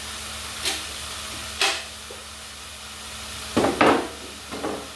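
Filet mignon pieces sizzling in a hot pan as they sear with sugar over high heat, the sugar caramelizing on the meat. A few short, louder crackles stand out over the steady sizzle, the loudest a close pair about three and a half seconds in.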